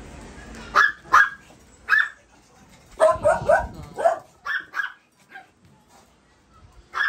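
Small dogs barking eagerly at a piece of chicken liver held out to them: a string of short, high yipping barks, with a quick run of three about three seconds in, thinning out after about five seconds.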